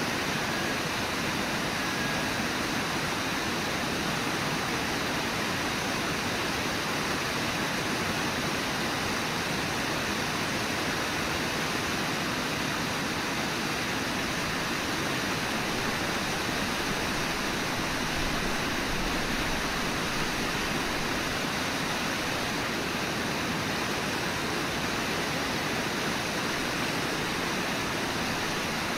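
Steady rush of whitewater on the Brooks River below Brooks Falls, an even roar with no pauses.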